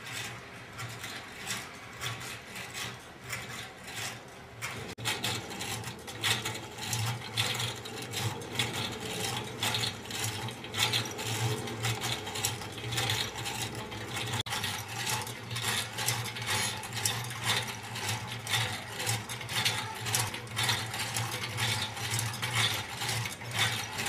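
Workings of a small mechanical automaton running: a rapid, uneven clicking and clattering of its moving parts over a steady low hum, getting louder about five seconds in.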